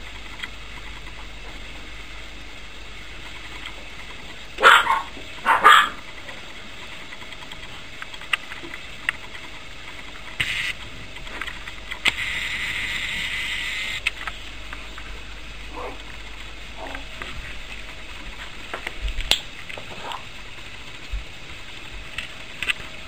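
Puppies at play, with two sharp high yaps close together about five seconds in and a few fainter yips and scuffles after them.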